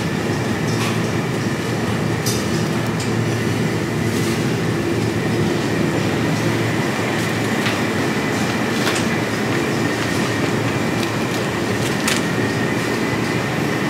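Metal shopping trolley rolling over a tiled floor, its wheels and wire basket rattling steadily, with scattered sharp clicks and a faint steady whine.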